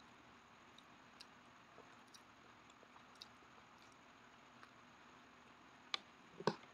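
Quiet chewing of instant black-bean noodles with faint small mouth clicks, then a sharp knock about six seconds in and a louder clatter just after, as a wooden utensil hits the plate.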